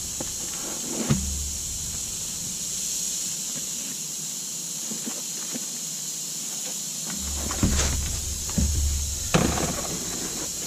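Tar paper being handled and worked into place on a shingle roof: a few short knocks and rustles, one about a second in and a cluster late on, over a steady high hiss, with stretches of low rumble.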